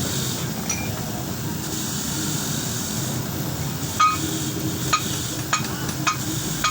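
A metal tool striking metal four or five times in the second half, each a sharp clink that rings briefly, over a steady low rumble.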